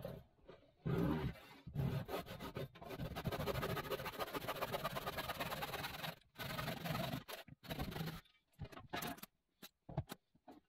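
Hand saw cutting through wooden framing in quick back-and-forth strokes, with a brief pause about six seconds in and a few stop-start strokes after it, then scattered knocks near the end.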